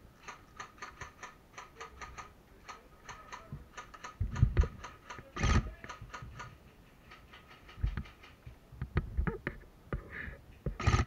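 Airsoft gunfire: rapid strings of sharp clicking shots, about six a second, broken by a few louder knocks about four and a half seconds in and again near the end.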